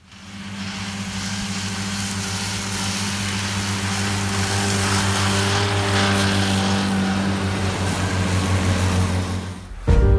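John Deere tractor and its mowing units running steadily while cutting hay: a low engine hum under a broad rushing noise, growing louder over the first few seconds. It cuts off just before the end as music begins.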